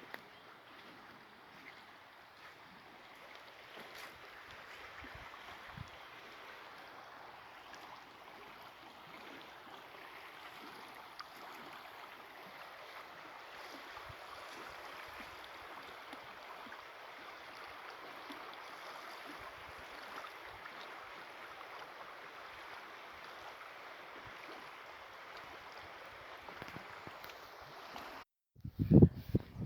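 Steady rushing of flowing water from a stream. Near the end it cuts off abruptly and loud low thumps begin.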